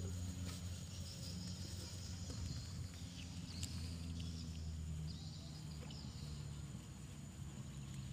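A motor's steady low drone, with a faint steady high whine above it and a few faint high chirps and ticks.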